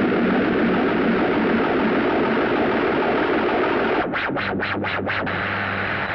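Electronic music: a dense synthesizer noise wash that, about four seconds in, starts pulsing on and off about four times a second over a held low note, then stops abruptly.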